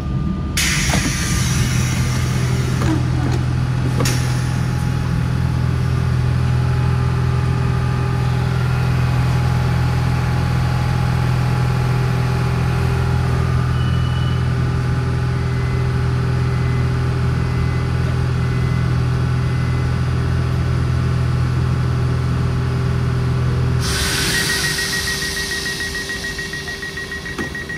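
Interior of a Z 20900 electric multiple-unit train: a steady low electrical hum with a few faint fixed tones above it. About 24 seconds in, the hum gives way to a hiss and a rapid, high-pitched beeping.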